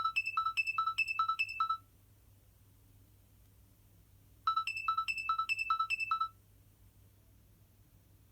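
Nokia 6060 mobile phone playing a beeping ringtone through its speaker: two quick runs of about seven same-pitch beeps, the second starting after a pause of about two and a half seconds.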